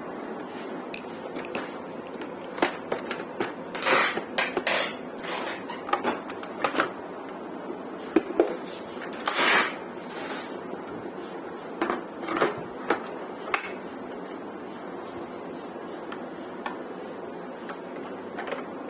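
Carpet washer parts and packaging being handled: scattered clicks and knocks of hard plastic with a few short rustling scrapes, busiest in the middle.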